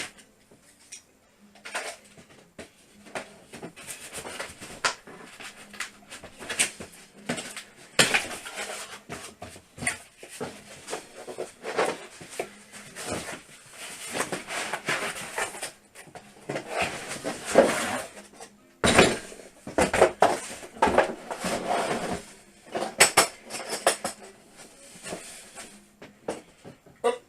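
Cardboard box and packaging being opened and handled: irregular rustling, scraping and sharp clunks and clicks, with no steady rhythm.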